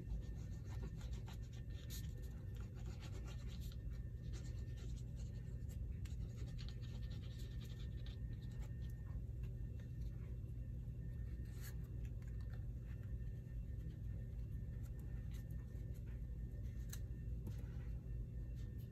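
Cardstock being worked by hand on a scrapbook page: a fine-tip glue bottle scratching across the paper, and paper pieces slid and pressed down. Scattered light ticks and scratches sit over a steady low hum.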